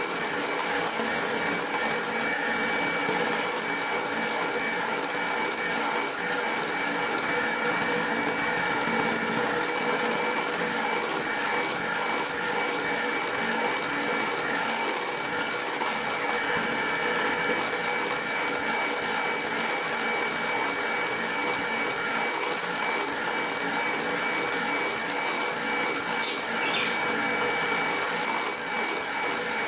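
Bosch electric hand mixer running steadily, its beaters whipping eggs and sugar in a stainless steel bowl until foamy: an even motor whine with a thin high tone over it.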